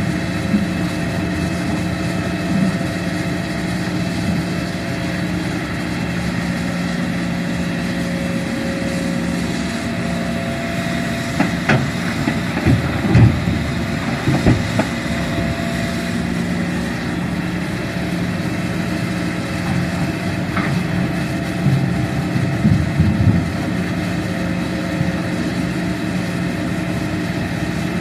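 Hitachi Zaxis 210F excavator's diesel engine running steadily as it works its hydraulics, with a burst of thuds and rattles about halfway through as the bucket empties soil into the dump truck's bed, and a few more knocks from the bucket some eight seconds later.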